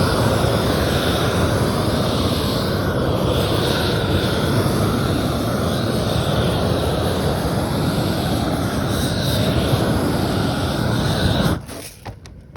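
Roofing torch burning steadily with a loud rushing flame, heating self-adhered roll roofing so it bonds to the base sheet; it shuts off abruptly near the end.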